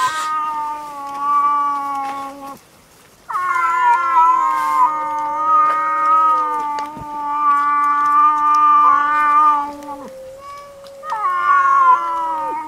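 Cats yowling at each other in a fight standoff, a calico and a tortoiseshell: long, drawn-out caterwauls in three stretches, with short breaks about three seconds in and about ten seconds in.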